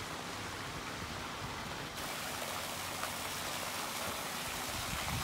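Steady rush of water, turning brighter from about two seconds in: two pipes at a house wall gushing water and splashing into the floodwater beneath them.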